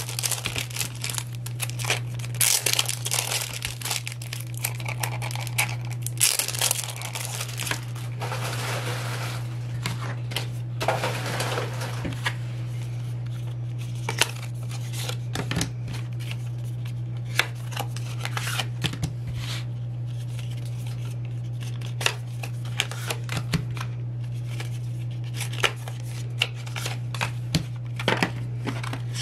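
Cellophane wrappers and paper photocard packs being torn open and crinkled, dense rustling for the first dozen seconds, then sparser sharp taps and clicks of cards being handled. A steady low hum runs underneath.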